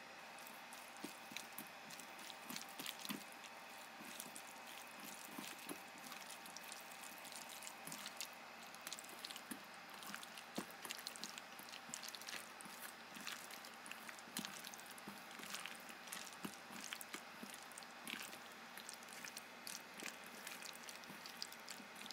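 Wet squelching and sticky smacking of hands mixing sliced raw squid in a thick sauce in a stainless steel bowl: many quick, irregular clicks starting about a second in.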